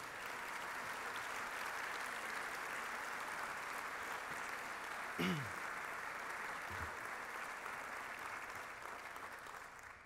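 Audience applauding steadily, fading out near the end, with one short falling sound about halfway through that stands out as the loudest moment.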